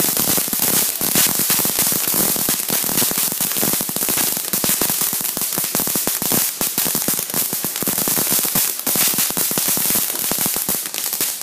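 Ground fountain firework spraying sparks with a dense, continuous crackling that cuts off at the end as it burns out.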